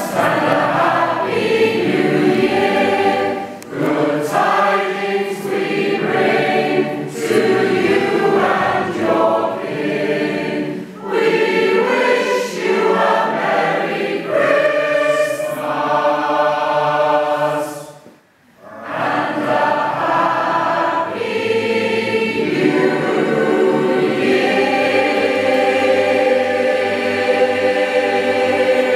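Mixed-voice choir of men and women singing, with a short break in the singing about two-thirds of the way through and a long held chord near the end.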